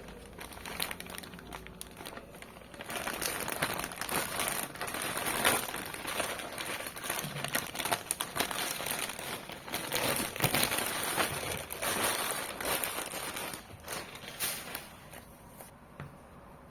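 Plastic packaging crinkling and rustling as a boxed figure is unwrapped, a dense run of irregular crackles that starts about three seconds in and dies down near the end.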